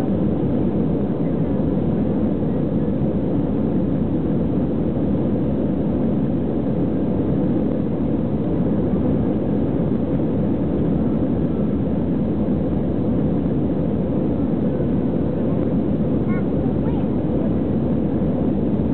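Steady cabin noise of an Airbus A320 airliner climbing after take-off, heard from a window seat over the wing: engines and airflow making an even, mostly low rumble.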